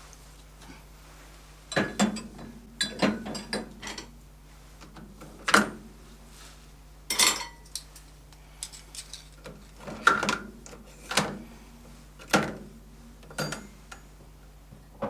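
Dishes and cutlery being loaded into a dishwasher's racks: irregular clinks and clatters of crockery set down one piece at a time, over a faint steady hum.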